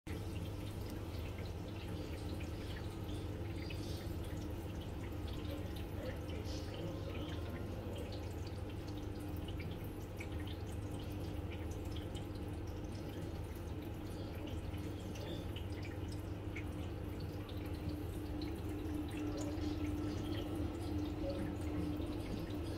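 Aquarium water dripping and trickling in small scattered drops over a steady low pump hum.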